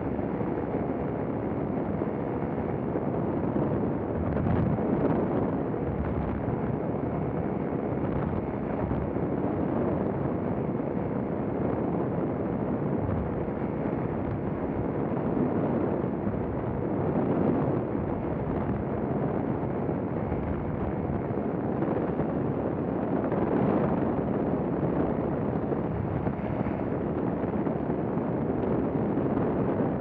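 Paramotor engine and propeller running steadily in flight, with wind rushing over the microphone.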